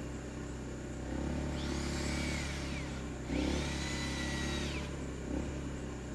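Small electric motor, like a power drill's, whining up in pitch, holding and winding back down, twice in a row, each run about a second and a half long, over a steady low hum.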